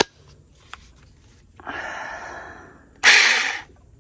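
A click, then a SeeSii 6-inch battery-powered mini chainsaw run in two short bursts, the second and louder one about three seconds in, to test its freshly tightened chain.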